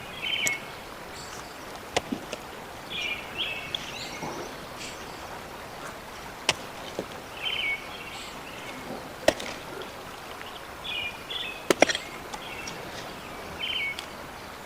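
Outdoor ambience with birds calling in short chirping phrases every couple of seconds. Several sharp knocks or snaps cut in at intervals of a few seconds, the loudest two close together near the end.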